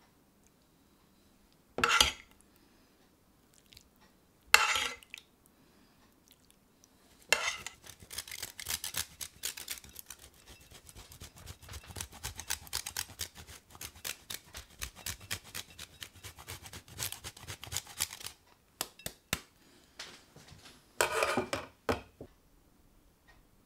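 Parmesan cheese being grated: a long run of quick rasping grater strokes, about five a second, for roughly ten seconds. Short louder clatters come twice before it and once near the end.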